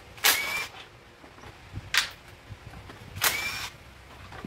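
Power wrench running in short bursts as it spins out the scooter's front-wheel bolts: three bursts, about half a second in, a brief one near two seconds, and another a little past three seconds, the longer ones with a faint rising whine.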